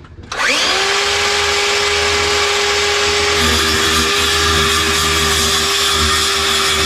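Handheld power saw starting up with a rising whine about half a second in, then running steadily as it cuts wood. Its note changes about three and a half seconds in.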